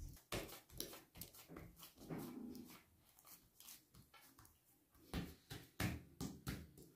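Hands patting and pressing a ball of yeast dough flat on a granite countertop: a run of soft, sticky slaps and taps, busiest at the start and again in the last two seconds.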